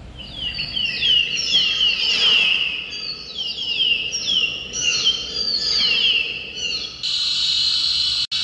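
Recorded bird calls played back from a museum nature display: a quick run of repeated descending chirps. About seven seconds in it switches abruptly to a steady, even buzz.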